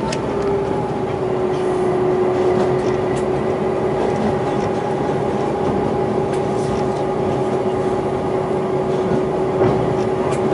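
DQ-class diesel locomotive running under power while hauling a loaded ore train, with a steady droning whine that drops a little in pitch at the start and then holds level, over the even rumble of the train rolling on the track.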